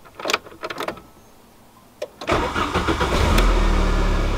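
A few light clicks, then about two seconds in the Volkswagen Golf's engine cranks briefly, catches and settles into a steady idle. It is being started to check whether reseating the loose spark plug wires firmly on the plugs smooths its running.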